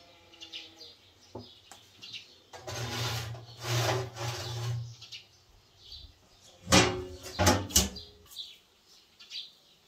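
A metal baking tray scrapes as it slides onto the rack of a stove's iron oven. About seven seconds in comes a quick series of loud metallic clanks as the iron oven door is swung shut and latched. Birds chirp faintly throughout.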